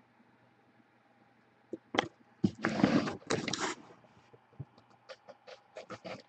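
A trading-card box and its packaging being handled. About two seconds in there is a sharp click, then a stretch of scraping and rustling, then a run of light clicks and taps.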